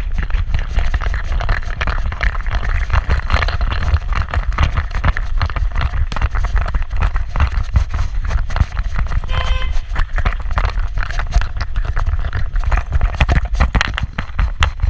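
A GoPro in a harness mount on a trotting small dog's back, jostled with every stride: a constant fast rattle of clicks and knocks from the camera, harness and leash clip over a low rumble of handling and wind noise.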